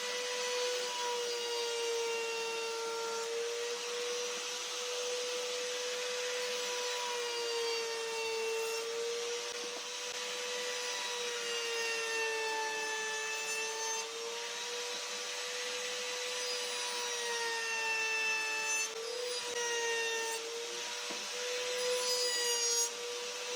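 Electric power tool motor running steadily on wood, its pitch wavering slightly, over a rough rubbing, sanding-like noise of the wood being shaped.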